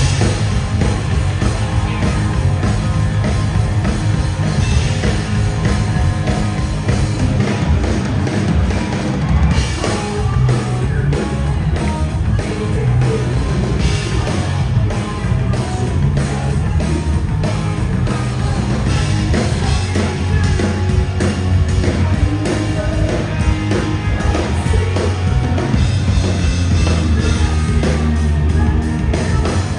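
Live hard rock band playing loudly: drum kit, electric guitars and bass, with the drumming turning steadier and denser about ten seconds in.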